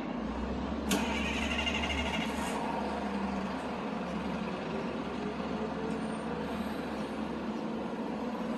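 City traffic: vehicle engines running and tyres passing, with a low engine rumble in the first few seconds and a sharp burst followed by a short hiss about a second in.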